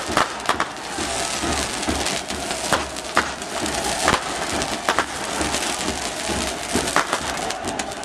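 A stadium crowd of football supporters makes a dense, continuous noise, cut through by many sharp irregular pops and crackles from firecrackers going off in the stand.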